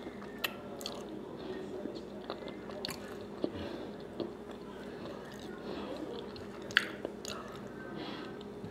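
Close-up chewing: moist mouth clicks and smacks, with one sharp click a little before 7 s the loudest, over a faint steady hum.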